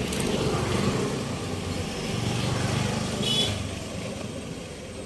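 A motor vehicle's engine rumbling past over street noise, loudest about halfway through and then fading.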